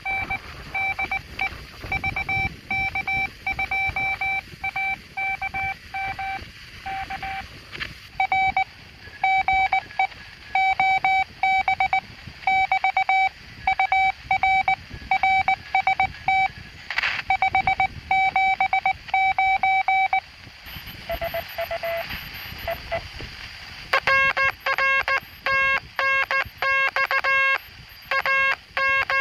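Morse code (CW) from the speaker of a homebrew direct-conversion QRP transceiver: a single steady tone keyed on and off in dots and dashes. About 24 seconds in, a lower, louder tone keyed the same way takes over.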